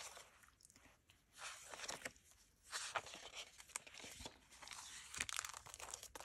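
Sheets of craft paper rustling and crinkling as they are handled and sorted, with small scattered taps and clicks.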